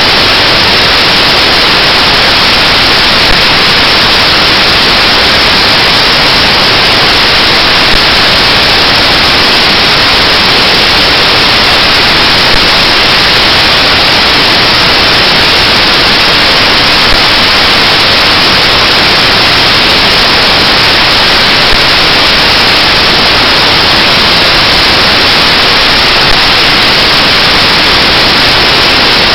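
Loud, steady hiss of static like white noise, unchanging in level and colour.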